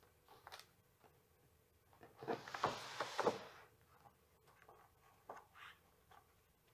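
A page of a large photo book being turned by hand: one brief paper swish a little over two seconds in, with faint paper rustles and small handling clicks around it.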